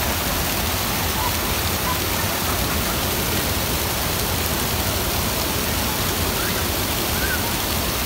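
Waterfall: water pouring over a wide weir-like ledge and spilling down shallow stepped cascades, a steady even rush of falling water.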